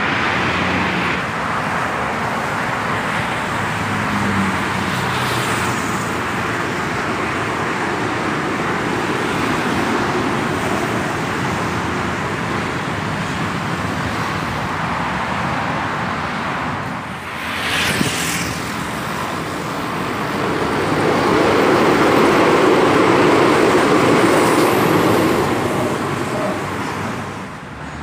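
Steady road traffic noise that swells for several seconds as a vehicle passes, about two-thirds of the way through.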